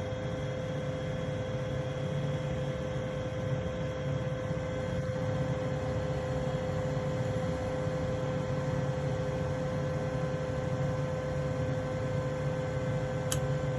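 Bryant gas furnace running: a steady motor hum with a constant tone, and a short click near the end.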